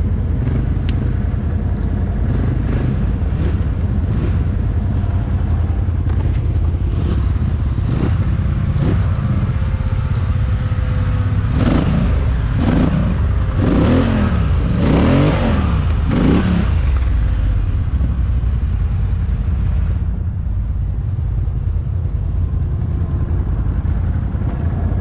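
Quad bike engines running steadily in low gear. Around the middle, a Polaris Sportsman XP 1000 revs up and down several times in quick succession as it climbs over a fallen log.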